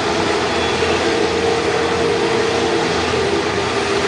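Jet aircraft engines running, a steady noise with a low drone.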